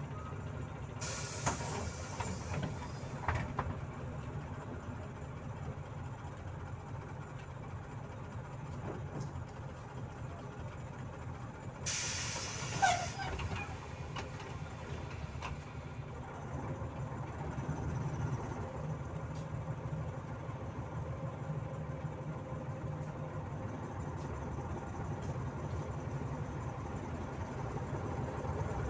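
Volzhanin-5270 city bus heard from inside the cabin: its engine idles low and steady, and the pneumatic system lets out two sharp air hisses, one about a second in and one about twelve seconds in, each lasting a few seconds. The engine sound picks up slightly in the second half.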